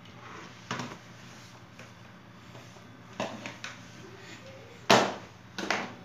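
Five short, sharp knocks or clicks spread unevenly, the loudest a little before the end, over a faint steady low hum.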